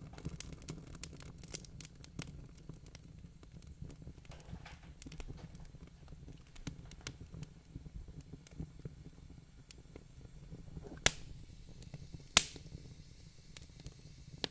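Faint, scattered small clicks and crackles over a low hum, with two sharper clicks about 11 and 12 seconds in.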